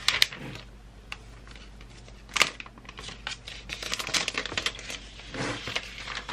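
Paper wrapping and the cardboard box of a new MacBook Air being handled: rustling and crackling with many short, sharp clicks and taps as the wrap is pulled away and the laptop lifted out.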